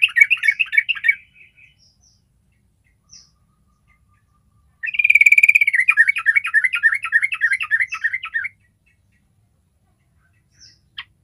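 Yellow-vented bulbul singing: a fast, bubbly chattering phrase that ends about a second in, then after a few seconds' pause a longer phrase of about four seconds that opens on a held note and runs into rapid chattering notes. A few short, faint chirps fall in the gaps.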